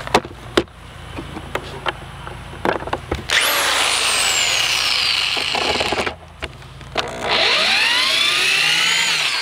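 Corded electric drill backing deck screws partway out of a wooden frame joint. It runs twice for two to three seconds each: the motor whine falls in pitch during the first run and rises during the second, with a few knocks and clicks of handling before it starts.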